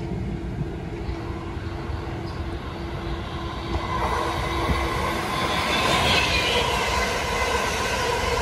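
A train running along the tracks and drawing nearer, growing louder about halfway through, with steady higher-pitched tones joining the rumble of the wheels.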